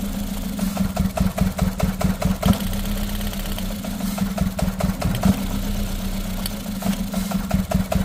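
Ford Figo petrol engine idling unevenly with a misfire, with irregular knocks through its steady note, as a spark plug lead is pulled off one cylinder to test it. The engine shakes much harder with the lead off, a sign that this cylinder was firing properly.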